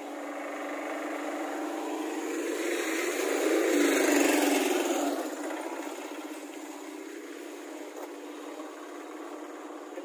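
A truck drives past on the road, its engine and tyre noise swelling to a peak about four seconds in, then fading away.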